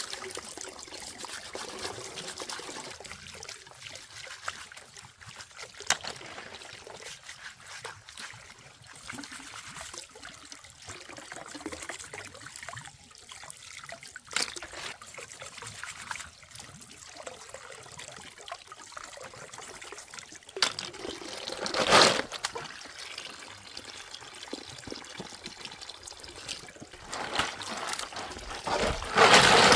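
Water trickling steadily, with scattered small clicks and two louder bursts of noise, one about two-thirds of the way through and one near the end.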